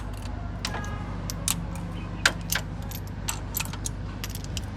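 Metal tools and parts clinking in irregular short, sharp clicks, the loudest about two seconds in, over a steady low hum.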